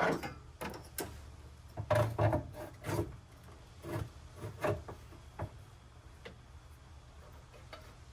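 Irregular knocks and scraping rubs of hard objects being handled, about a dozen over the first five and a half seconds, then only a low steady hum.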